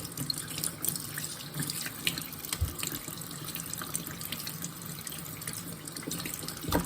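Water running from a kitchen tap into a sink, with scattered small clicks and a low thump near the end.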